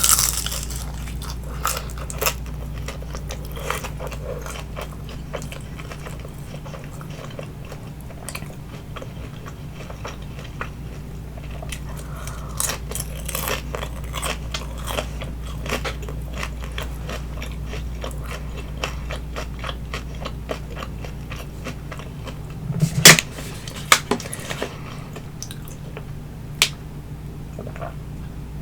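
Close-miked chewing of crispy baked vegetable spring rolls: many small crunches and wet mouth clicks, with a few louder crunchy bites about two-thirds of the way in.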